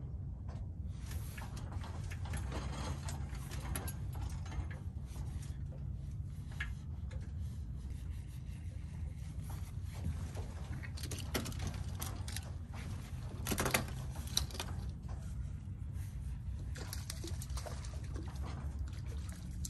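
Steady low outdoor rumble with scattered light clicks and taps, and a brief louder rustle a little past the middle.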